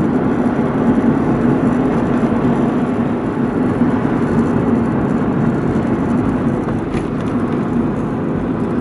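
Steady road noise and engine hum heard from inside a moving vehicle, even and unbroken, with a faint click about seven seconds in.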